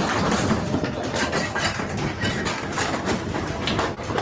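Building contents shaking in a strong earthquake: a continuous din of many rapid knocks and rattles over a low rumble.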